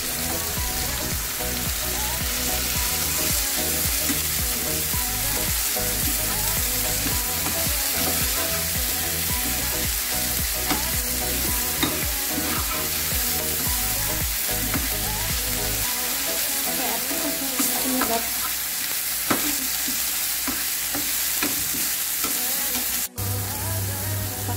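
Ground curly red chilies and salam leaves sizzling in hot oil in a nonstick frying pan, stirred with a slotted metal spatula that scrapes and taps the pan now and then. The sound cuts out for an instant near the end.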